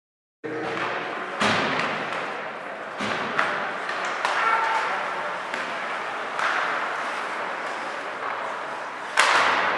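Ice hockey game play in an echoing rink: a steady wash of skating and arena noise with several sharp knocks and thuds of stick, puck and boards, the loudest near the end. It starts abruptly about half a second in.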